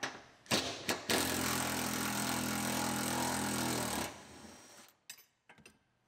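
Cordless impact driver unfastening a rear-seat mounting bolt: a few clicks as the bit is seated, then the tool runs steadily for about three seconds, drops to a quieter run and stops just before five seconds in, followed by a couple of light clicks.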